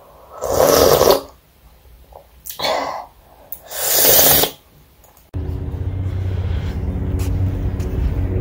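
A person slurping food noisily off a spoon, three loud slurps. About five seconds in, a sudden switch to steady outdoor wind noise on the microphone with a low hum.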